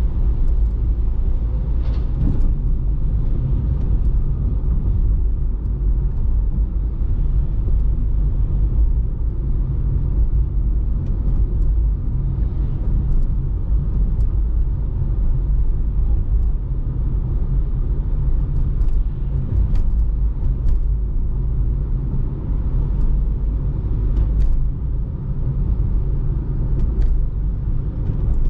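A car driving in city traffic, with a steady low rumble of engine and tyres on the road and a few faint clicks here and there.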